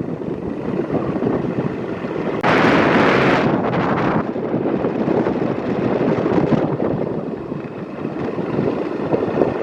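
Wind buffeting a phone microphone on a moving two-wheeler, a steady rumbling rush with a stronger gust about two and a half seconds in that lasts nearly two seconds.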